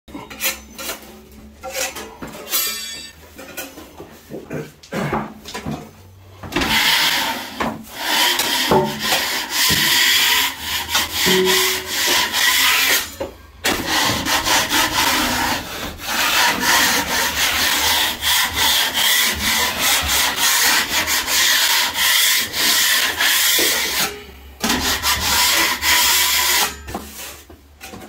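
Steel drywall finishing knife scraping topping compound across a plasterboard ceiling in long, continuous strokes while the finish coat is spread. Before that there are a few short scrapes and taps of the knife on the hawk as compound is loaded.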